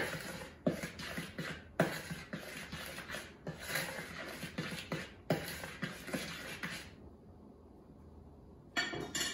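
A utensil stirring flour, sugar, cinnamon and salt in a plastic mixing bowl: repeated scraping swishes with sharp taps against the bowl, stopping about seven seconds in, then one brief scrape near the end.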